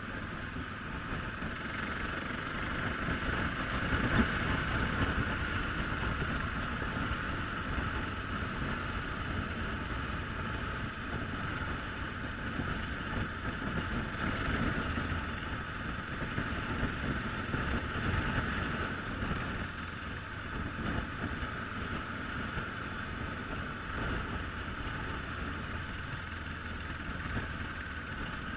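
Dirt bike engine running steadily while the bike rides along.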